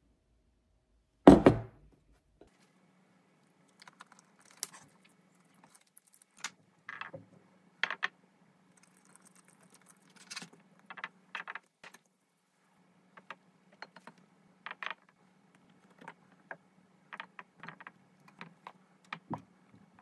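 A heavy thud about a second in, then scattered light clicks and taps of kitchen handling: a knife cutting sponge cake on a wooden board and a spoon against a glass container, over a faint low hum.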